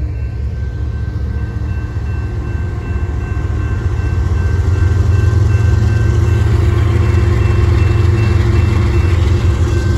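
Diesel locomotives of a BNSF freight train running past. The low engine rumble grows louder about four seconds in, with a steady high tone over it.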